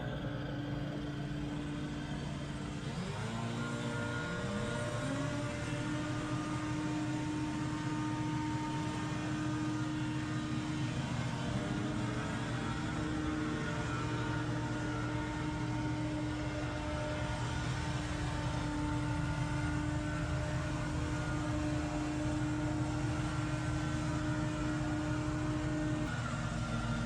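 Small engine of lawn power equipment revving up about four seconds in, holding a steady high speed, then dropping back near the end.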